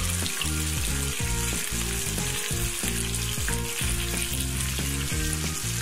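Two whole pomfret frying in hot oil in a pan: a steady sizzle, as the fish, crisp on the first side, are being turned over with metal spatulas. Background music of changing low notes plays underneath.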